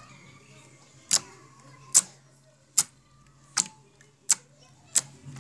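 Clear yellow slime squeezed and pressed with the fingers, giving six sharp pops about one every three quarters of a second as its air pockets burst. It is described as crackling well.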